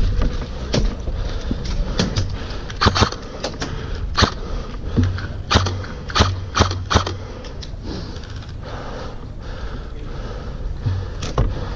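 Irregular sharp clicks and knocks, about a dozen, bunched in the middle, over a steady background of scraping noise.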